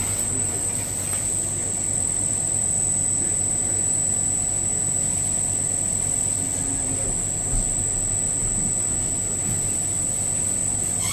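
Dairy processing machinery running steadily, a low hum under a constant high whine.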